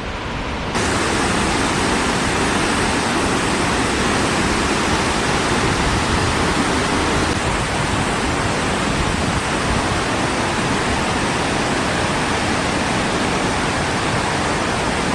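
Waterfall on a river running high with spring snowmelt: a steady, dense rush of pouring water. It jumps up in level just under a second in.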